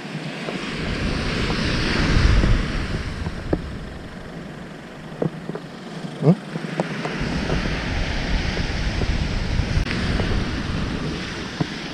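Wind buffeting the microphone over the wash of surf breaking on the shore, the rumble coming in gusts that ease in the middle and pick up again, with a few light knocks.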